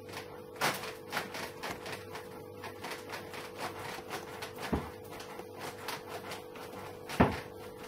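Irregular light clicks and knocks from a ski with boots clamped in a damper binding plate being handled on a wooden floor. One louder knock comes about halfway and a sharper one near the end, over a faint steady hum.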